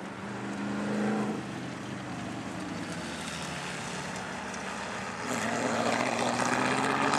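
Ford GT40 race car's engine running through a corner, its note swelling about a second in. From about five seconds in, a second race car's engine joins, rising in pitch as it accelerates and getting louder.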